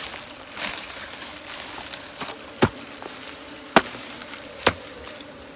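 Hand hoe chopping into hard, root-filled soil: three sharp strikes about a second apart, amid faint scraping and rustling of dirt and dry brush.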